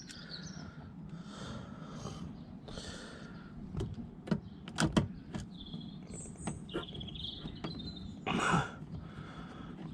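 A handful of sharp clicks and knocks, with a short scrape near the end, as a Torx T30 screw is fitted by hand into a car door's pull-handle trim. Birds chirp in the background.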